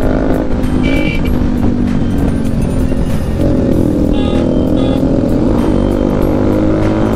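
Bajaj Pulsar NS200 motorcycle with a loud aftermarket exhaust, running on the move; its engine note holds, then shifts in pitch. Background music plays along with it.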